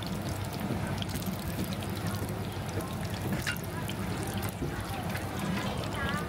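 Meat pies frying in a large pan of hot oil: a steady sizzling hiss with a low hum underneath.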